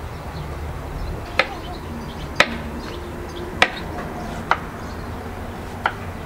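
A knife chopping onion on a wooden cutting board: five single sharp knocks spaced about a second apart.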